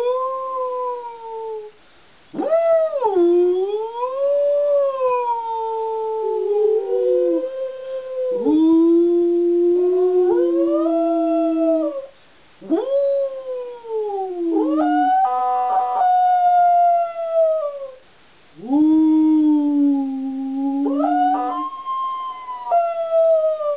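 A dog howling in long, sliding notes, with a man howling along; the howls come in several long phrases with short breaks between them.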